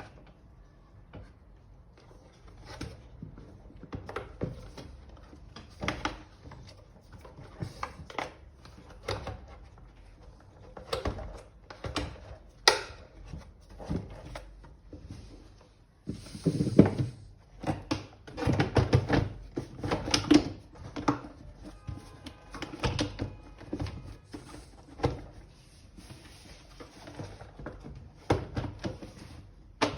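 Hard plastic parts of a vacuum cleaner being handled and fitted during a motor replacement: irregular clicks, knocks and scrapes, louder and more frequent after about halfway.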